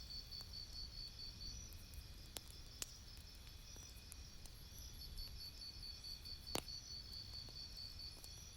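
Campfire crackling: scattered sharp pops of burning wood, the loudest about six and a half seconds in, over a low rumble. A steady high pulsing chirp like a cricket's runs behind.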